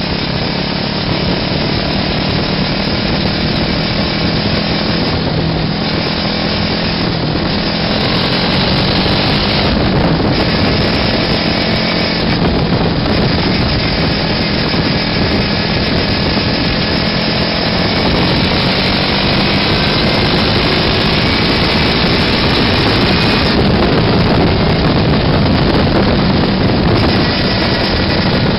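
The buggy's small air-cooled engine running steadily while driving along the road, with a constant engine note that eases briefly a few times in the first half.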